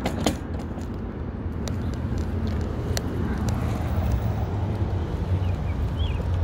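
Riding a bicycle on a concrete sidewalk: a steady low rumble of wind buffeting the handlebar-mounted phone microphone, mixed with tyre and road noise. A few sharp clicks sound from the bike during the first three seconds, and there are a few short high chirps near the end.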